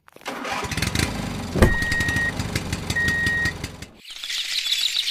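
A tractor engine starts and runs with a dense rattle, with a knock about a second and a half in and two short, high, steady beeps like a horn. It cuts off abruptly about four seconds in, and outdoor ambience with bird-like chirping takes over.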